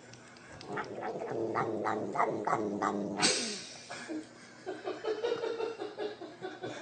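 Domestic cat vocalising in a string of drawn-out calls, broken about three seconds in by a short harsh burst of noise, then a run of short quick calls, about four a second.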